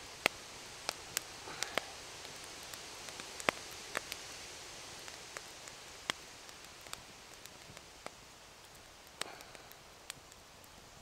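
Small fire of split kindling crackling: irregular sharp pops and snaps over a faint steady hiss.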